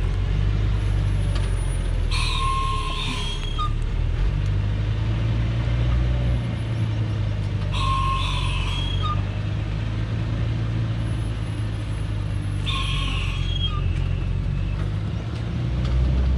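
Heavily loaded Thaco Forland diesel truck's engine running steadily as the truck crawls down a steep dirt slope, with three short high-pitched squeals about five seconds apart.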